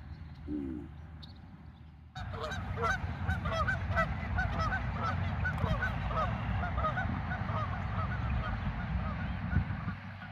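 Geese flying overhead, honking over and over in quick succession, starting suddenly about two seconds in, over a low steady rumble.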